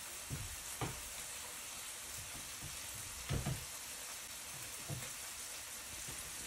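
Steady background hiss with a few soft, low thumps scattered through it.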